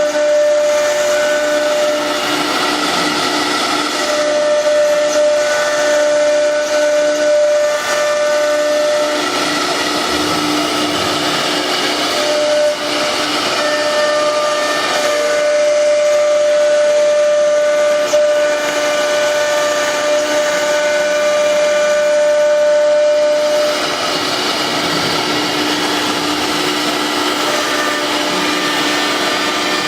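Fastcut 1325 CNC router spindle running with a steady high whine over a hiss as it cuts wood panel; the hiss grows brighter near the end.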